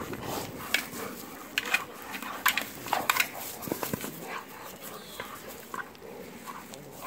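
Rottweiler making short dog noises as it noses and mouths a yellow ball, with irregular sharp clicks and knocks of teeth and paws on the ball.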